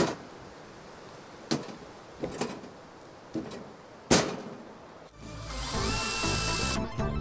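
A few scattered knocks and taps as a metal meter box is set against a wooden pole and positioned. About five seconds in, a DeWalt cordless drill starts driving a screw into the box's mounting bracket: its motor whine rises, then holds steady.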